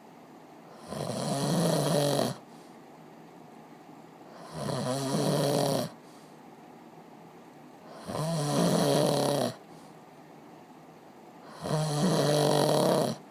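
A person snoring: four long snores at an even pace, about one every three and a half seconds, each lasting about a second and a half.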